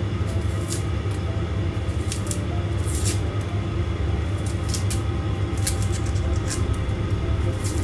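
A steady low hum with scattered light clicks and knocks of kitchen handling during food preparation.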